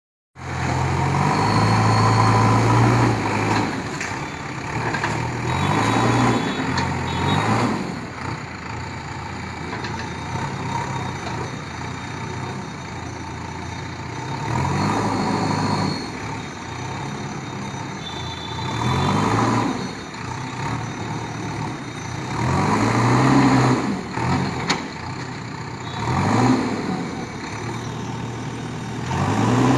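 Bulldozer engine running under load, its revs and loudness rising and falling again about six times.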